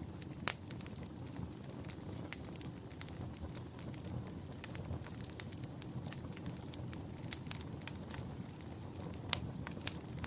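Wood fire burning in a fireplace: a steady low rumble of flames with frequent sharp, irregular crackles and pops.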